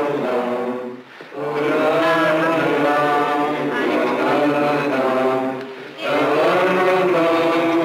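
Choir singing slow, held chords without words, breaking off briefly about a second in and again just before six seconds.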